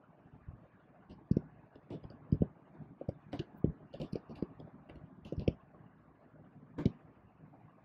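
Computer keyboard keys clicking in an irregular run of keystrokes as a short line of text is typed, with a last separate click a little before the end.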